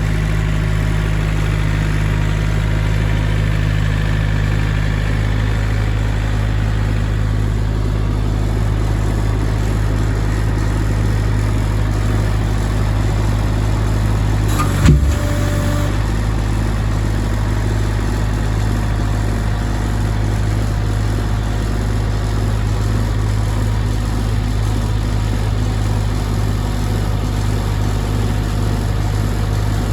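Engine running steadily at an even speed, with a single brief knock about halfway through.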